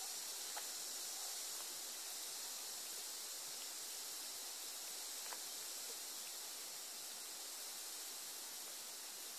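Steady hiss of the recording's own background noise, with a couple of faint ticks about half a second and five seconds in; the play-fighting kittens make no clear sound.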